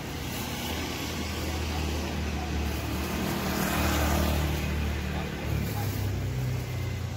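Street traffic: a motor vehicle's engine hums steadily, and the sound swells as a vehicle passes, loudest about four seconds in.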